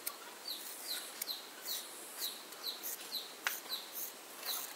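Hand scissors snipping through a lock of hair in quick repeated cuts, a short sharp snip about twice a second, with a few separate clicks of the blades.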